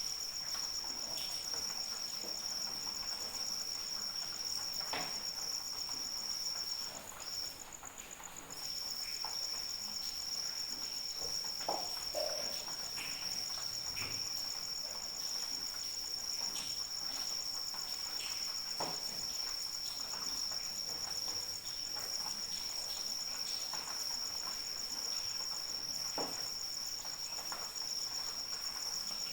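Crickets chirping in a continuous high, even trill, which breaks off for about a second and a half some seven seconds in. A few faint, scattered ticks sound over a light background hiss.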